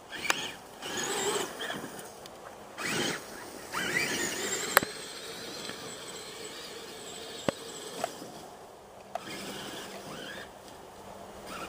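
Battery-powered 40 mph RC truck's electric motor whining up in several short bursts of acceleration, one rising sharply in pitch about four seconds in. A few sharp knocks follow in the second half, with a quieter stretch between them.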